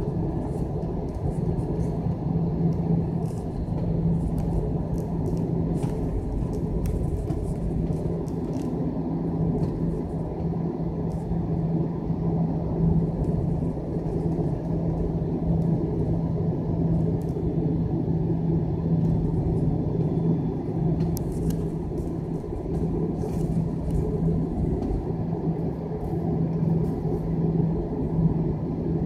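Steady cabin drone of an aircraft in flight: engine and airflow noise with a constant low hum.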